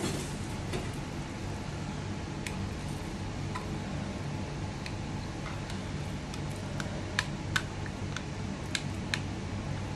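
Light clicks and taps of small plastic diamond-drill containers being handled, coming more often in the last few seconds, over a steady low hum in the room.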